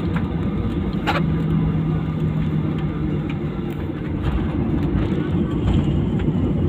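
Steady rumble of an airliner's passenger cabin just after landing, with the engines still running, a low hum for a couple of seconds and a few short clicks.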